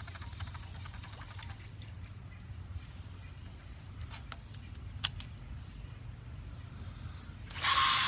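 Baitcasting reel being wound in, its gears giving a fast fine ticking in the first couple of seconds, with a few clicks and one sharp click about five seconds in. Near the end the rod is cast and line runs off the spool with a loud whirring hiss lasting about a second.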